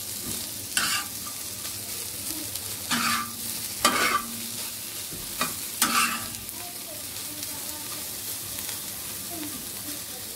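Scrambled egg sizzling steadily on a flat black iron tawa, while a metal slotted spatula scrapes and turns it across the griddle in about five short, louder strokes.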